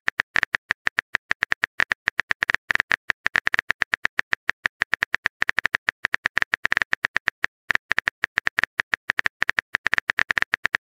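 Rapid phone-keyboard typing clicks, one short tick for each character as a text message is typed out, with a brief pause about seven seconds in.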